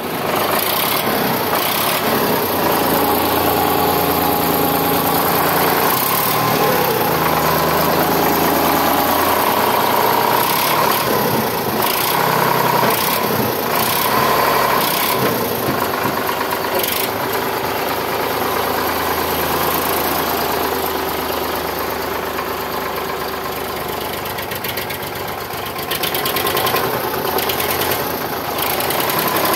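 Sonalika DI 745 III tractor's diesel engine running steadily up close. The sound eases a little after about twenty seconds and grows louder again near the end.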